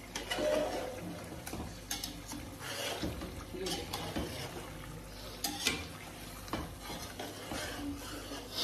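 Metal spoon stirring chicken in a large aluminium pot, with irregular scrapes and clinks of metal on metal over a low sizzle as the chicken fries in its masala.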